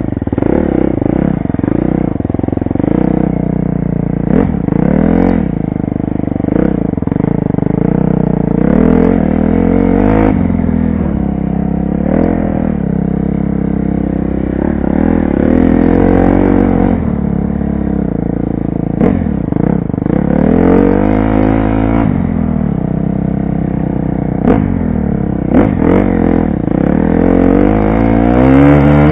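2012 KTM 250 SX-F four-stroke single-cylinder dirt bike engine being ridden, revving up and backing off over and over as the throttle is worked. Occasional sharp knocks and clatter come from the bike over rough ground.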